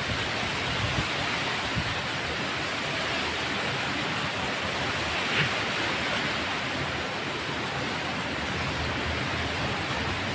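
Strong typhoon wind blowing steadily through the leaves of mango trees, a continuous rushing noise.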